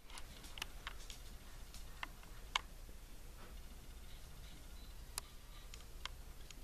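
Quiet room with a few faint, irregularly spaced clicks and ticks. The sharpest is about two and a half seconds in.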